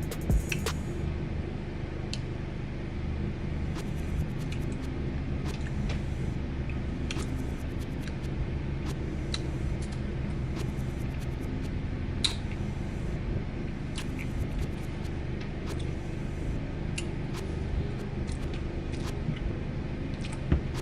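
Steady low rumble with scattered short, sharp clicks and taps, as of a spoon working in an ice cream carton.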